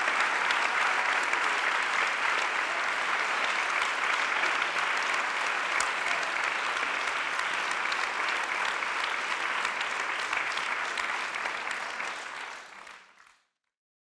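Audience applauding, a steady mass of handclaps that slowly eases and then fades out to silence shortly before the end.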